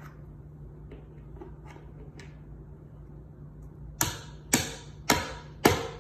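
Wooden toy mallet hammering the pegs of a toddler's wooden toy tool box: a few faint taps, then four sharp knocks about half a second apart near the end.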